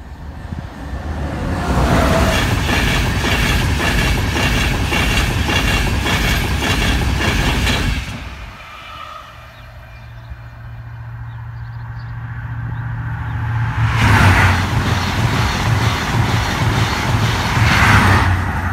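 Two express trains passing at speed on the East Coast Main Line, a CrossCountry High Speed Train and a Virgin Trains East Coast train, one after the other. The first rushes past loudly for about six seconds and drops away quickly. The second comes in with a steady low hum and is loudest twice, about four seconds apart.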